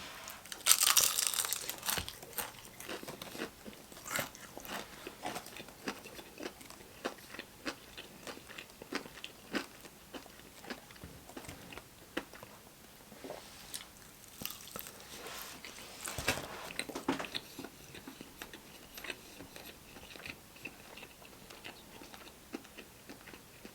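Close-miked biting and chewing of crispy fried chicken wing: the breading crunches and crackles with each bite, with wet chewing between. A loud crunchy bite comes about a second in, and another cluster of bites comes a little past the middle.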